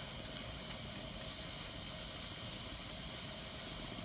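Belgian balance siphon coffee maker hissing steadily as steam and air push the last of the hot water out of its heated canister through the siphon tube.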